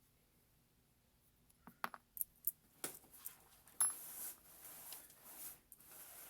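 Small metal parts of a folding knife clicking and tapping as its pocket clip is fitted during reassembly: a handful of sharp clicks starting about a second and a half in, then softer handling and rubbing noise.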